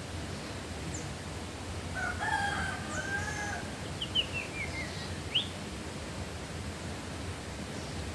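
A rooster crows once, about two seconds in, over a steady rustling hiss. Just after it, a small bird gives a quick run of short falling chirps and one rising chirp.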